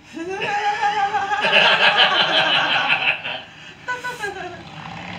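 People laughing loudly in a long burst, with a shorter laugh about four seconds in.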